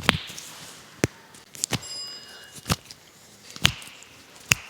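About six sharp cracks, roughly a second apart, from joints being cracked during a chiropractic adjustment. A brief high ping sounds about two seconds in.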